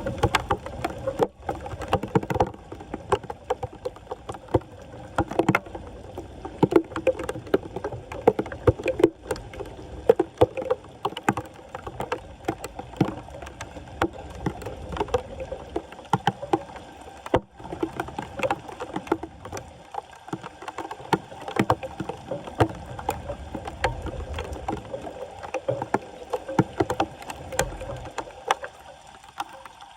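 Shallow floodwater sloshing and splashing, with irregular knocks and scrapes as debris is worked free of a clogged street drain.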